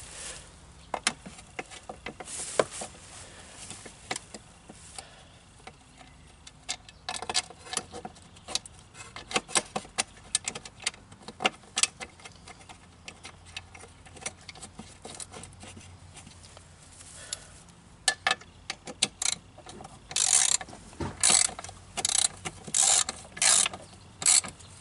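Ratchet wrench clicking in short runs as a bolt on a lawn mower deck is turned, growing into louder, busier spells of ratcheting near the end.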